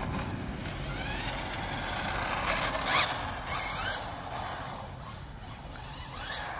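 Brushed 550 electric motor and drivetrain of a 1/10 scale RC touring car running on a 3S battery, its whine rising and falling several times as the throttle is worked, over steady background noise.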